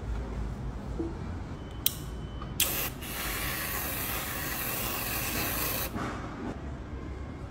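Aerosol whipped-cream can spraying cream onto a drink: a brief spurt just under two seconds in, then a steady hiss for about three seconds that cuts off sharply.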